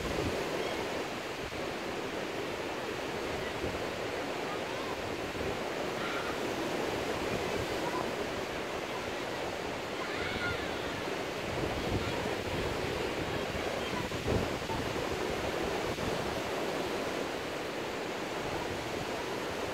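Surf breaking on a sandy beach: a steady, even wash of waves, with one brief knock about fourteen seconds in.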